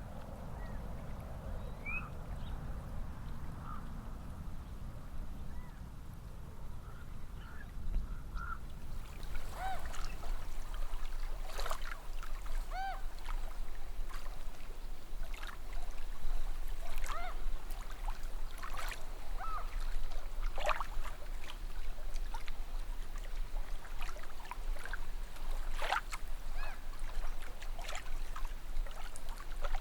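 Outdoor ambience of birds calling. A low rumbling gives way about eight seconds in to a steady hiss, with many short chirping calls and scattered sharp clicks over it.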